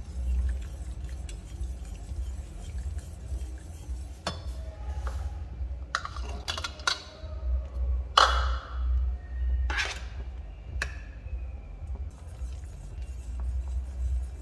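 A metal wire whisk clinking against a stainless steel saucepan, about half a dozen sharp ringing knocks in the middle of the stretch, the loudest about eight seconds in. Background music with a steady bass beat runs underneath.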